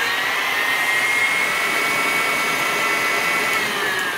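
KitchenAid stand mixer running at high speed, its wire whip beating eggs and sugar for a sponge cake batter; a steady motor whine. Near the end the whine drops in pitch as the mixer slows.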